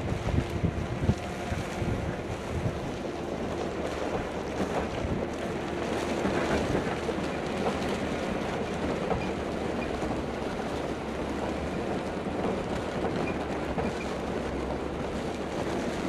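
Steady wind noise on the microphone, with strong low gusts in the first second or so.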